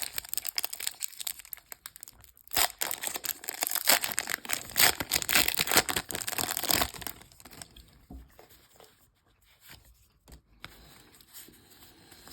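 Foil wrapper of a Pokémon trading card booster pack crinkling and tearing as it is opened, busy for about seven seconds, then only faint handling sounds.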